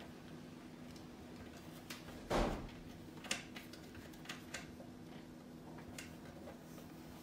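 A cat moving about inside a small wooden wall cubby: a thump about two and a half seconds in, then a few light knocks and taps against the shelf.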